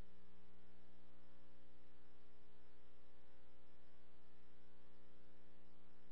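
Steady electrical hum made of several fixed tones, over an even hiss, with no change throughout.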